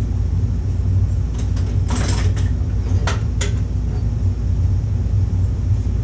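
A few light knocks and clatters of hand tools being handled, about one and a half to two seconds in and again around three seconds in, over a steady low hum.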